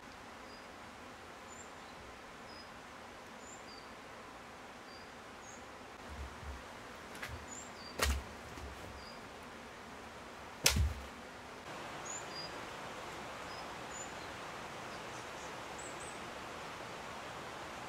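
Two sharp knocks, one about eight seconds in and a louder one nearly three seconds later, with a few softer taps just before them. Behind them is a steady outdoor hiss with faint high chirps.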